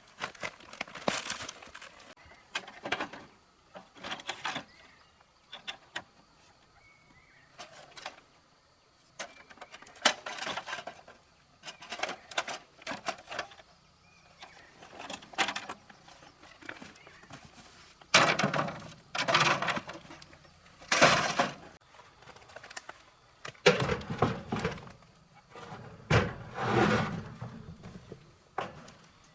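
Irregular clanks, scrapes and rattles of metal parts and tools being handled during motorcycle repair work, in short bursts with pauses between them.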